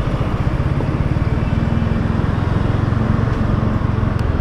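Yamaha R15 V3's single-cylinder engine running at low revs, a steady low pulsing.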